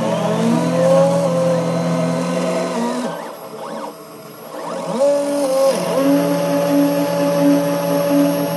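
Home-built CNC mill cutting aluminium with an end mill: a motor whine that glides up and down in pitch as the cutter moves, over the cutting noise. It dies down about three seconds in, comes back about five seconds in, and then holds a steady pitch.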